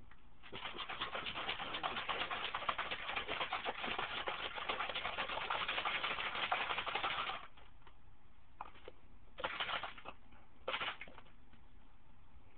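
Protein shake being shaken hard in a closed bottle, a dense rapid rattle of chocolate chips knocking inside, for about seven seconds, then three short shakes.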